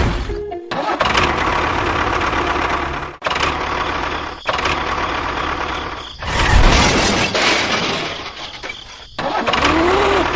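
A small motor-driven machine running steadily, with the noise cut off abruptly and resuming several times, about three, four and a half and nine seconds in.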